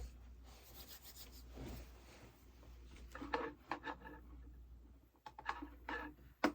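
Soft rubbing and scraping at a desk, in short strokes, grouped in two flurries in the second half.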